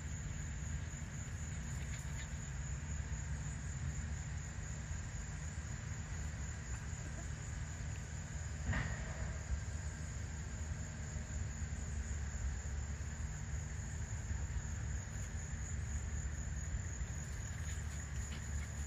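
Steady high-pitched insect chorus, crickets or katydids trilling without a break, over a constant low rumble. About nine seconds in there is one brief sharp sound.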